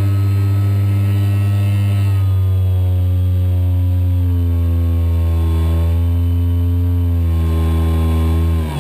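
Scorpion 4020-10 brushless electric motor turning an 11x10E APC propeller, heard from inside the model Spitfire's cockpit: a loud, steady whining drone. Its pitch drops a little about two seconds in, wavers slightly through the middle, then falls away sharply near the end as the motor slows.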